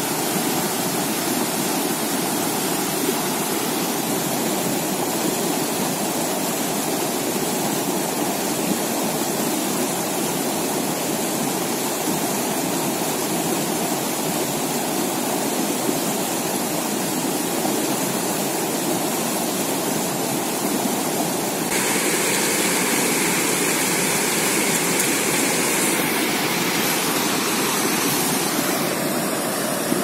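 Rapids of a fast mountain river rushing over boulders: a steady roar of white water. It grows brighter and a little louder for a few seconds about two-thirds of the way in.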